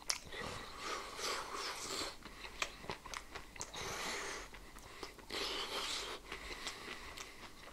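A person chewing a mouthful of fried food in several bouts, with small clicks between them.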